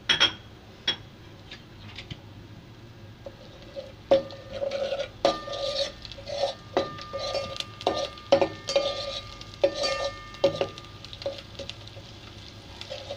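A metal spoon stirring and scraping in a steel cooking pot, with clinks that set the pot ringing. There is a sharp clink right at the start, then a run of quick scrapes and knocks from about four seconds in that eases off near the end.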